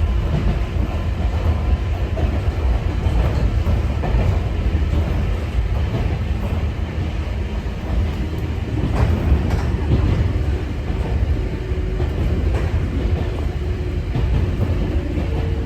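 Interior running noise of a Sangi Railway 801 series electric train (ex-Seibu 701 series): a steady rumble of wheels on rail with an occasional knock from the rail joints. Under it is a faint steady tone from the traction motors.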